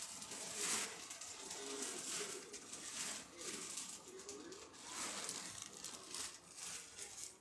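Repeated rustling and crinkling of crinkly material being handled and moved about, in uneven surges, with a faint voice underneath.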